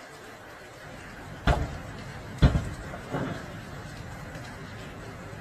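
Heavy blows against a house's front door as a team tries to force it: two loud bangs about a second apart, then a lighter knock.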